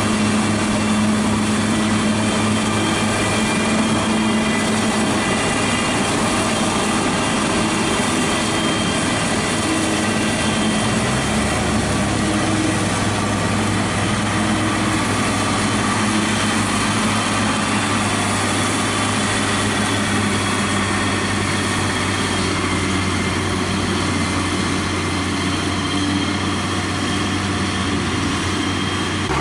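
Hesston 7420 self-propelled forage harvester chopping maize, with a Same Centurion 75 tractor running alongside: a loud, steady blend of engine tones and machine noise. The low engine note changes about a third of the way through.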